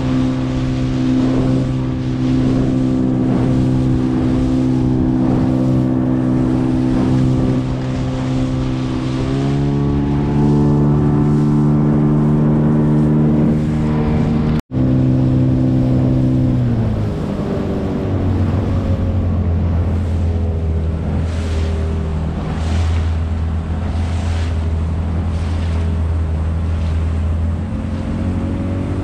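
Gladiator 9.9 outboard motor running under way, with water and wind noise. About nine seconds in, the engine note rises as the throttle opens. After a brief break in the sound midway, it falls back to a lower steady speed and edges up again near the end.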